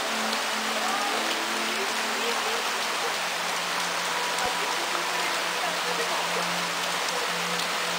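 Heavy rain pouring steadily on grass and garden leaves, an even, unbroken hiss.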